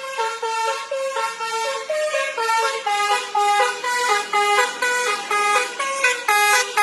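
A tune played in a honking, horn-like sound: a run of held notes stepping up and down in pitch, two or three a second, with no bass underneath.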